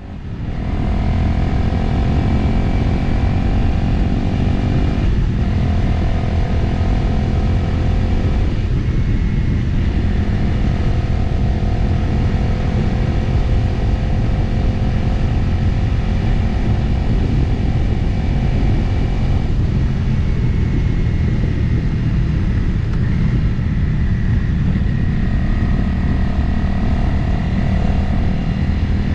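Motorcycle engine running at road speed, with heavy wind rush over the microphone. The sound fades in at the start, and the engine note shifts a few times along the way.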